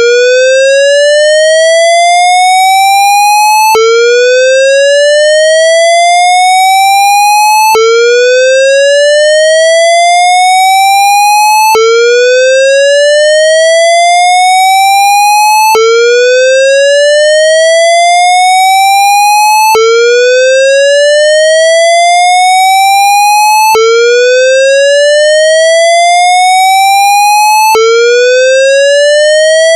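Synthesized square-wave fire-alarm whoop tone, a recreation of the Siemens MXL-V voice-evacuation whoop: each note rises one octave over about four seconds, then snaps back down and starts again, repeating steadily. It is the evacuation signal of the building's fire alarm system.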